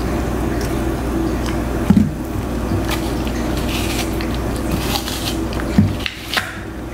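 Siberian husky chewing a piece of green apple, with irregular crisp crunches, the loudest about two seconds in.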